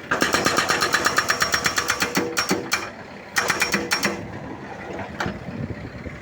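A rapid, even mechanical rattle of about a dozen strikes a second, in two bursts: one of about two seconds at the start, and a shorter one about three and a half seconds in.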